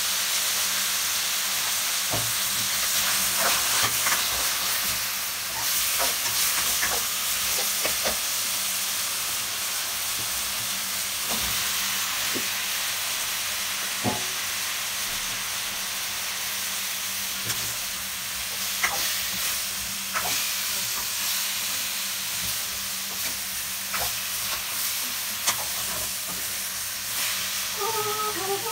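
Chop suey stir-frying in a frying pan: a steady sizzle, with a spoon scraping and knocking against the pan every few seconds as the meat, onions and mixed vegetables are stirred.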